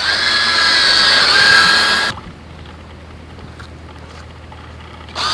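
Small electric motors of an RC model boat whining as they drive the twin propellers. About two seconds in the whine gives way to a much quieter hum, and it returns just before the end.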